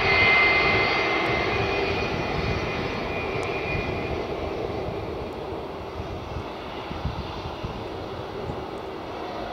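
Boeing 757-200 jet airliner rolling out on the runway after landing, its Rolls-Royce RB211 engines running with a high whine that is loudest at the start and fades after about four seconds. The whole sound then dies away steadily.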